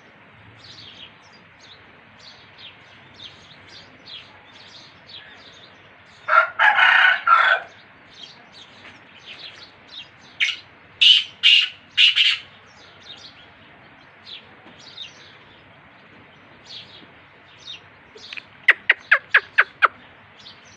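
Black francolin (kala teetar) calling: a loud harsh call of about a second and a half some six seconds in, four loud grating notes around the middle, and a quick run of about seven sharp notes near the end. Small birds chirp faintly and continually in the background.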